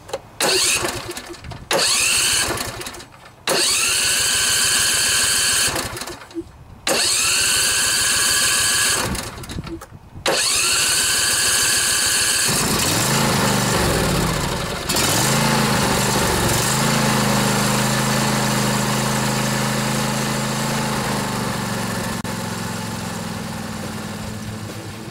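New Briggs & Stratton Intek V-twin OHV engine on a riding mower being cranked by its electric starter in about five short bursts while the fuel pump fills the dry carburetor with gas; on the last try, about halfway through, it catches, surges briefly and settles into a steady idle.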